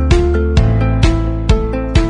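Background music with a steady beat: plucked-string notes struck about twice a second over a sustained bass.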